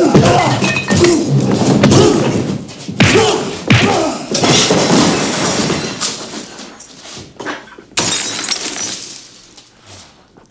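Movie bar-fight sound: a run of loud crashes and thuds with glass breaking and shattering, mixed with men's grunts. The blows come in clusters, each with a short ringing tail, and they thin out and quieten near the end.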